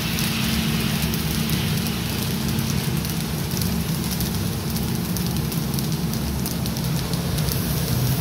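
Freshly roasted coffee beans pouring from a Probat drum roaster into its cooling tray and churned by the rotating stirring arms: a steady rattling hiss of many small ticks. Under it runs the steady hum of the roaster's motor and cooling fan.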